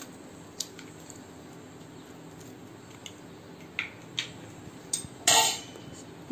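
Eggs cracked against the rim of a stainless steel mixing bowl: a few light sharp clicks and knocks from the shells, then a louder brief clatter about five seconds in.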